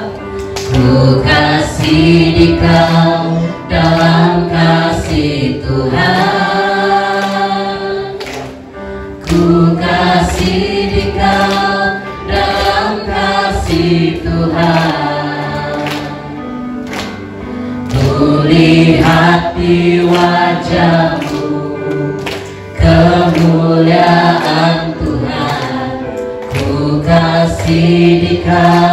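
A group of people singing a song together, phrase after phrase with short breaks between them.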